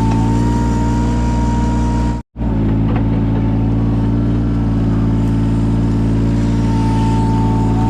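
Yanmar 017 mini excavator's diesel engine running steadily, with a steady whine over it. The sound cuts out for a split second about two seconds in.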